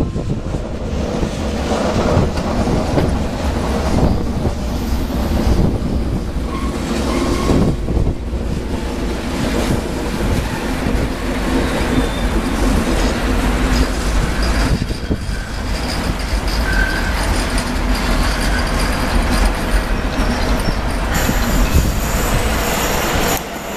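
An electric locomotive and its passenger coaches pass close by: a steady rumble of wheels on rail, with clattering over the rail joints and short squeals from the wheels now and then. The sound changes briefly near the end.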